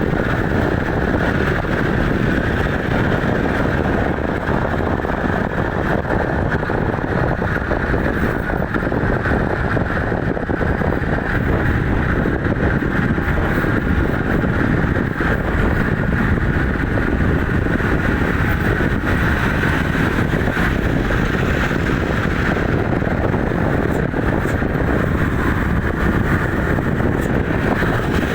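An engine running steadily, a dense, even rumble with no changes or breaks.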